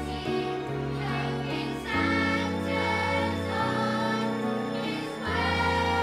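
Children's choir singing a song over instrumental backing music, with held low bass notes that change about two seconds in and again near the end.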